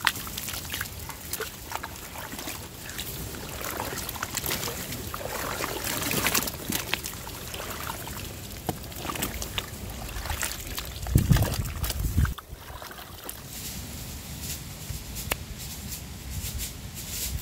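Water sloshing and trickling, with scattered clicks and knocks, and a heavier low thud about eleven seconds in.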